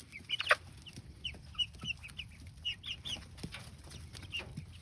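Flock of young chickens peeping, many short high chirps overlapping one another, with one sharp click about half a second in.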